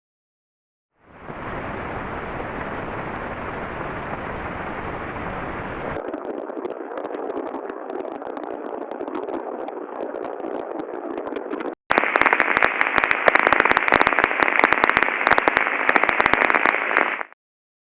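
Ultrasound inspection recordings played back through a heterodyne ultrasound detector. A steady hiss starts about a second in and turns crackly at about six seconds. After a brief break, a louder hiss dense with crackles and pops cuts off abruptly near the end.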